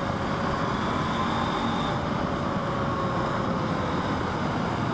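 KTM 790 Adventure R's parallel-twin engine running at a steady cruise, its note holding level under a constant rush of riding noise.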